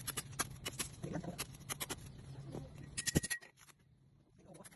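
A kitchen knife cutting through the green crown and stalk of a banana bunch: a run of short crisp cuts and snaps that stops a little after three seconds in.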